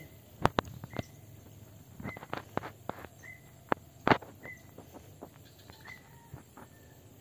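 Irregular sharp snaps and crackles of dry grass and straw being pressed and handled by a crouching person, the loudest about half a second in and about four seconds in. A short high chirp repeats roughly once a second through it, the gaps widening toward the end.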